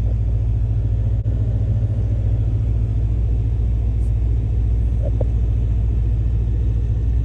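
Steady low engine rumble heard from inside a vehicle's cabin, with no change in pitch.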